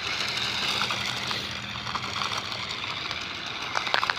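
RC car driving and spinning on icy ground: a steady hiss of its tyres and motor, with a few sharp ticks near the end.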